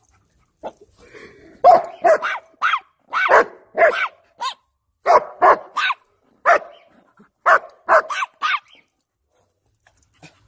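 A dog barking: a quick run of about fifteen short, sharp barks in clusters of two or three, starting about a second and a half in and stopping a couple of seconds before the end.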